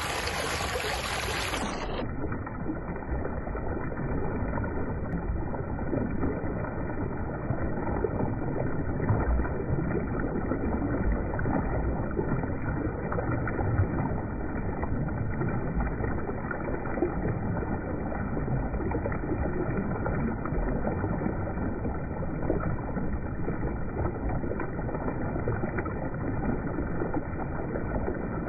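River water rushing and churning against the bank, with the continual splashing of a school of lambari leaping as it runs upriver.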